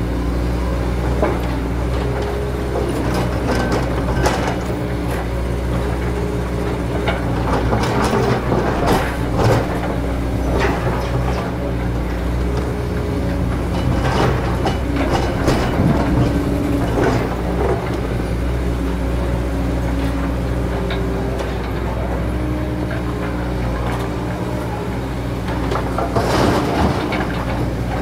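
Komatsu PC200 hydraulic excavator's diesel engine running steadily under load as it digs a muddy river bank, with irregular knocks and scrapes from the bucket and boom working, loudest about four seconds in, around eight to ten seconds, fifteen to seventeen seconds and near the end.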